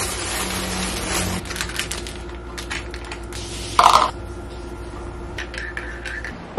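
Small clicks and knocks of a plastic vacuum flask and ceramic mug being handled on a counter, with one short louder sound from the flask about four seconds in, then a metal spoon clinking in the mug while stirring near the end. A faint steady hum runs underneath.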